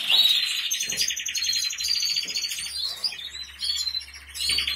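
Canaries singing in long, fast rolling trills that run almost without pause, breaking off briefly near the end before starting again.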